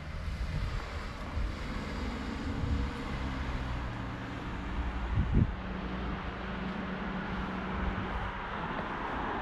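Motor vehicle running with a steady low rumble and hum, with a short thump about five seconds in.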